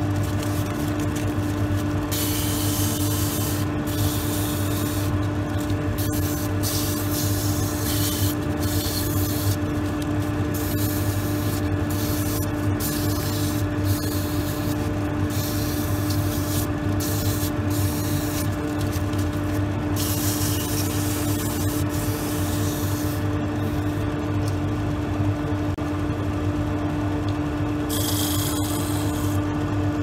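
Wood lathe running with a steady hum while hand-held abrasive paper sands a spinning wooden drawer knob, a rubbing hiss that keeps coming and going as the paper is pressed on and eased off.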